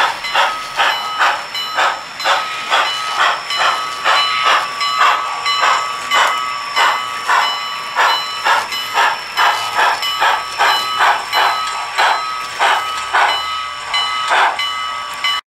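Model steam locomotive's chuffing exhaust, evenly paced at about two and a half chuffs a second as it works a freight train, over a steady thin whine. The sound cuts off suddenly near the end.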